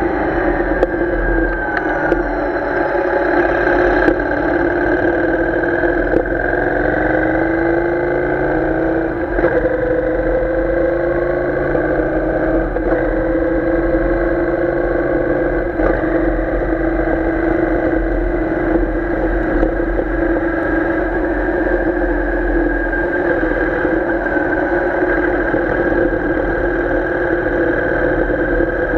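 Royal Enfield Interceptor 650's 648 cc parallel-twin engine running under way at cruising revs. The engine note falls in the first couple of seconds, climbs again around seven to nine seconds in as the bike speeds up, then holds steady.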